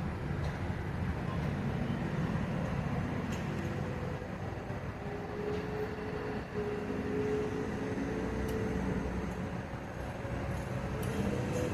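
Heavy equipment engine running steadily with a low rumble, with a whine that shifts in pitch partway through and rises near the end.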